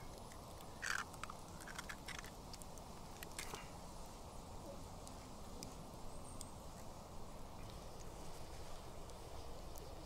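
An egg frying in hot oil in a small pan over a campfire: a faint steady sizzle, with a few sharp pops and crackles in the first four seconds.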